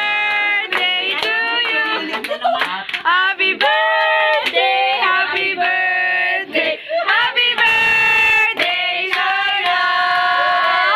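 A group of people singing together in a mix of women's and children's voices on long held notes, with hand clapping.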